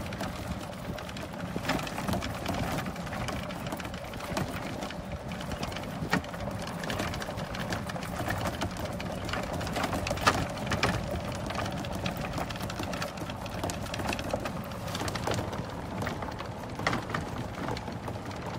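A small motor running steadily with a constant whine, with rattling and a few sharp knocks over it.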